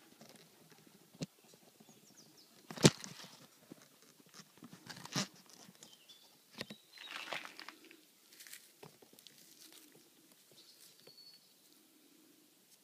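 Close handling noise: scattered knocks and clicks, the loudest about three seconds in and another about two seconds later, with rustling and crunching of dry leaves between them.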